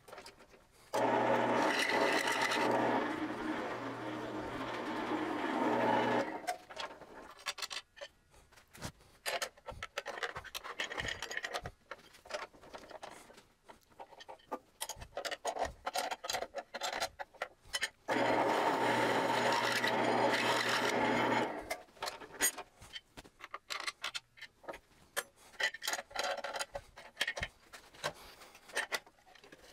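Drill press running with a step drill bit cutting holes in the metal front panel of an amplifier box, in two bouts of about five and three seconds, a steady motor hum under the cutting noise. Between and after the bouts, scraping and clicking as the box is handled on the drill table.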